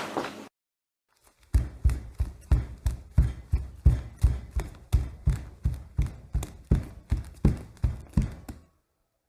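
Running footsteps: an even run of low, thudding footfalls, about three a second, starting about a second and a half in and stopping shortly before the end. A brighter, sharper set of steps dies away in the first half second.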